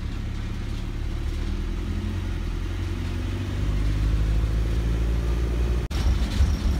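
Open-sided safari vehicle driving on a dirt road, heard from inside: a steady engine rumble that rises in pitch and gets louder about three and a half seconds in as it picks up speed. A brief dropout near the end.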